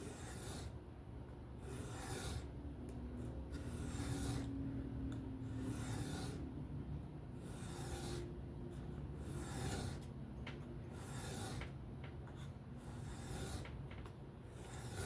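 A knife blade scraping across a whetstone in freehand sharpening strokes, a rasping swish about every two seconds, over a low steady hum.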